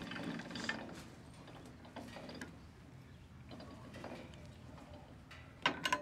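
Wood-Mizer LT15 Wide sawmill's hand-cranked head-height winch being turned to set the blade height for the next cut: faint mechanical clicking of the crank and gearing, with a sharper burst of clacks near the end.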